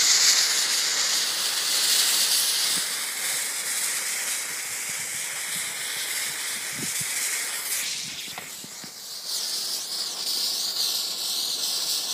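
Burning 2.5 mm visco fuse, hissing steadily. The hiss fades briefly about eight seconds in, then picks up again.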